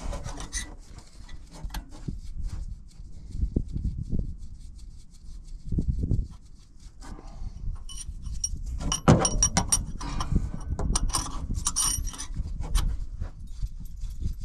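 Hand work on a tractor's fan drive pulley: irregular metal clicks, scraping and dull knocks as parts and tools are handled, with a run of sharp clicks in the second half.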